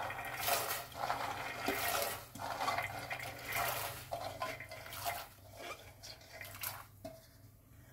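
Handfuls of soaked dried green peas dropped into a steel pot of hot water, splashing and plopping in irregular bursts that die away about seven seconds in.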